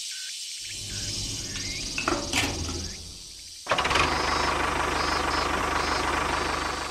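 A miniature DIY tractor's motor running: a lower steady hum with a few clicks at first, then a louder steady running sound that cuts in suddenly a little past halfway as the tractor drives off pulling its trailer.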